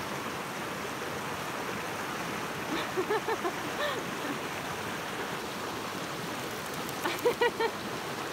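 Steady rushing of a shallow, rocky mountain stream. A few short, high voice sounds come over it about three seconds in and again in quick pulses near the end.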